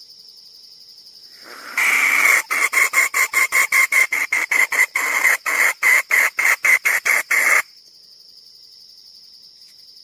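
Jungle fowl hen calling: a longer opening note and then a loud, rapid cackle of sharp notes, about four a second for some five seconds, stopping abruptly. Crickets trill steadily before and after.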